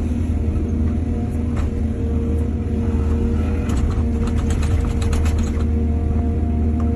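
Excavator's diesel engine running steadily, with a quick run of clanks and rattles in the middle lasting about two seconds.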